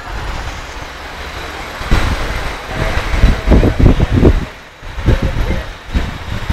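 Street traffic noise with an even hiss of passing vehicles and irregular low rumbling buffets on the microphone, loudest from about two seconds in.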